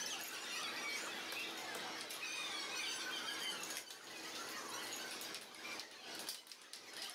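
Faint arcade din: a jumble of wavering high-pitched sounds from the surrounding game machines, with a few sharp clicks.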